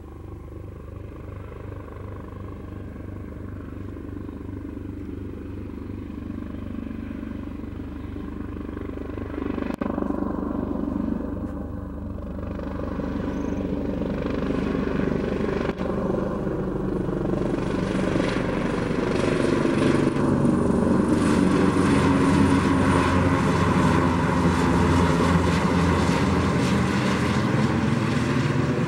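Eurocopter EC225LP helicopter flying low and close, its rotor beat and twin turboshaft engines growing steadily louder as it approaches. In the second half the sound fills out and its pitch bends as the helicopter passes near.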